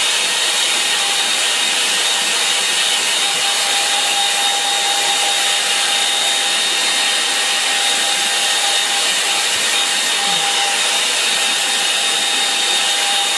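Handheld hair dryer running steadily on high, blowing over a wet watercolour painting to dry the paint: a constant rush of air with a thin whine in it.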